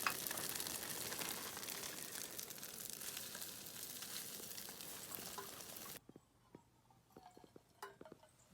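Food sizzling and crackling in a hot pan, slowly dying down, then cutting off suddenly about six seconds in. A few faint clicks follow.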